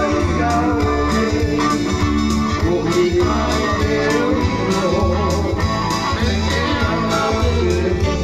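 A man singing to his own strummed acoustic guitar, with a steady rhythm and a deep bass line under the chords.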